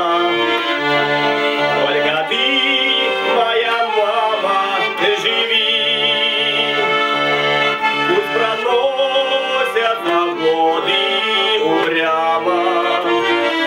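Garmon, a Russian button accordion, playing an instrumental passage: a melody over a steady bass-and-chord accompaniment.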